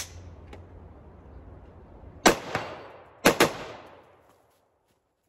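AR-15 rifle with a Franklin binary trigger firing. A sharp crack comes at the very start, a loud shot about two seconds in, and a quick pair of shots a fifth of a second apart about three seconds in, the double tap of the binary trigger firing on pull and on release. Each shot rings out in echo, and the sound cuts off abruptly a little past four seconds in.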